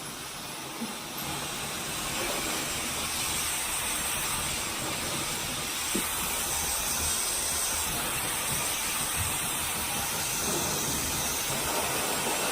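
Dyson hair dryer blowing a steady rushing hiss of air, growing a little louder about two seconds in.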